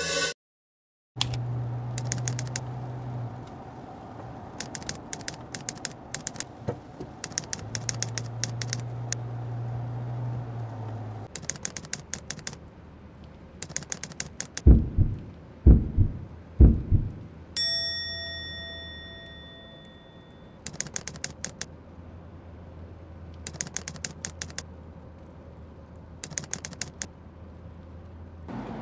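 Bursts of rapid typewriter-style key clicks, each lasting about a second, over a low steady hum. Three heavy thumps come about halfway through, followed by a single ding that rings for a couple of seconds.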